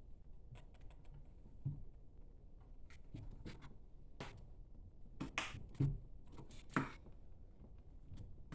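Light clicks and taps of computer parts being handled and fitted into place by hand, with a few sharper clicks in the second half.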